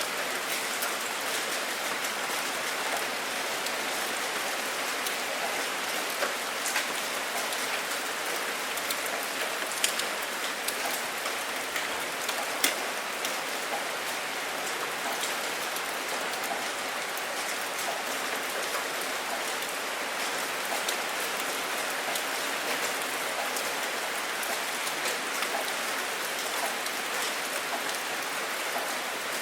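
Steady rain falling, an even hiss dotted with many small drop ticks, with a couple of louder drips, one about ten seconds in and one a little later.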